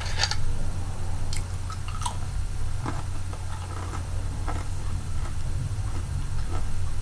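Close-miked chewing and mouth sounds of a person eating chili, with scattered small wet clicks and a sharper click cluster near the start, over a steady low hum.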